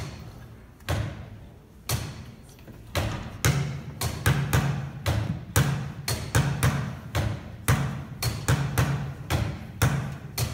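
Deep drum strikes in a percussion performance: single hits about a second apart, then quickening into a denser, uneven rhythm from about three and a half seconds in.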